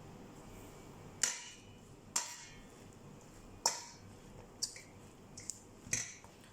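Kitchen dishes and utensils clinking: about six separate sharp clinks and knocks, a few ringing briefly, spaced irregularly over several seconds.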